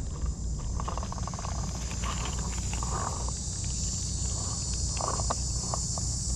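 Steady high-pitched insect drone over a low rumble, with a few short rustles and clicks.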